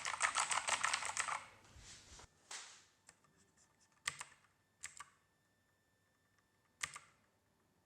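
Rapid typing on a Keychron K2 mechanical keyboard with clicky blue switches, a fast run of key clicks that dies away about a second and a half in. A few separate single clicks follow.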